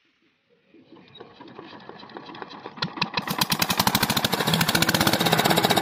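Lister-type single-cylinder diesel pump engine starting: it turns over with quickening beats, catches about three seconds in, and settles into a loud, fast, even knock.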